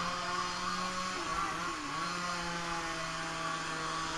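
Small engine running at a steady high speed, its pitch dipping briefly about a second and a half in before settling again.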